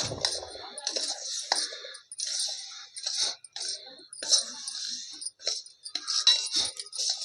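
Irregular clinking and scraping as the dry-fruit laddoo mixture is worked with a little milk added.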